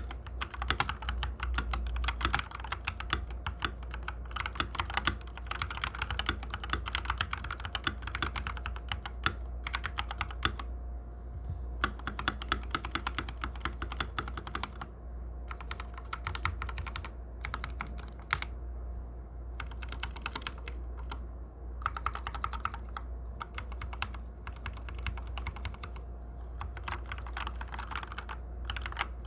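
Typing on an Akko 3084S mechanical keyboard with Akko CS Jelly Pink linear switches: rapid runs of keystroke clacks in bursts with short pauses.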